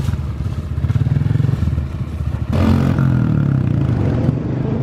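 Small dirt bike engine running at low revs during a slow turn; about two and a half seconds in, the note rises and gets louder as more throttle is given.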